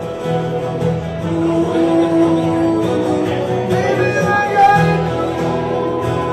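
Country music played live on guitar: an instrumental passage with held notes and no singing.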